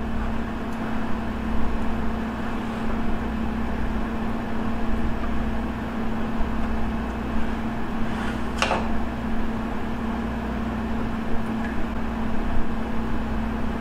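Steady mechanical hum with a constant low tone, like a fan or air-conditioning unit running, with one brief noise about eight and a half seconds in.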